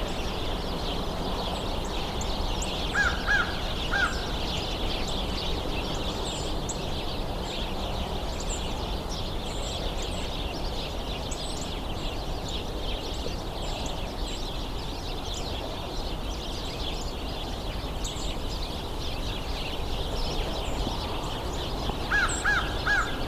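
American crow cawing: a run of about four caws a few seconds in and another near the end, over the continuous high chatter of a hidden flock of small birds.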